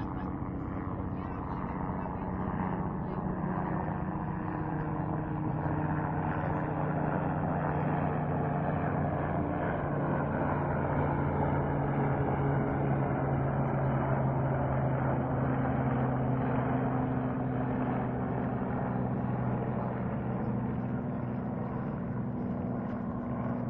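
An aircraft passing overhead: a steady engine drone that swells toward the middle and slowly shifts in pitch as it goes by.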